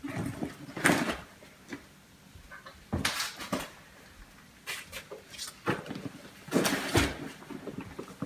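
A backpack being rummaged and handled, with an item pulled out of it: a few short bursts of rustling and knocking, the loudest about a second in, around three seconds in and near seven seconds in.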